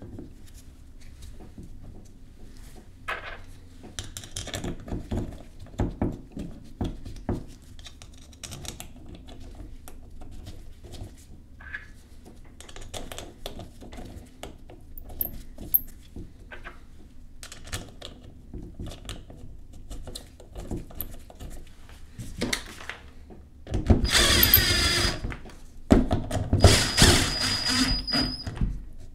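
Light clicks and knocks of a metal pump cover and bolts being handled and set by hand, then a cordless power driver running twice for a couple of seconds each, near the end, driving the cover-plate bolts into a vacuum pump housing. The driver runs are the loudest sound.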